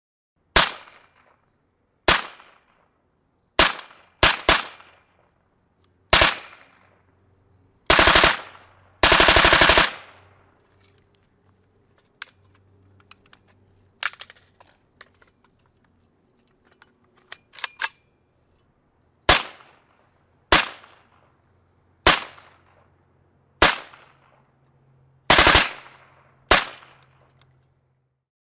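AK-47 rifle (7.62×39 mm) firing: six single shots, each with a short echoing tail, then two short bursts of rapid automatic fire. Then quieter metallic clicks and rattles of the rifle being reloaded. Then single shots again, one of them a quick double.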